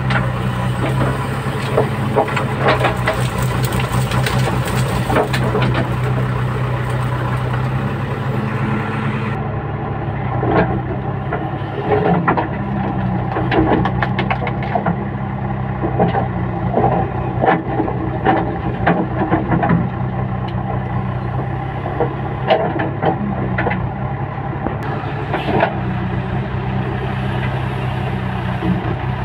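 JCB backhoe loader's diesel engine running steadily, heard from the operator's cab, with many sharp knocks and clanks as the backhoe arm and bucket are worked through brush.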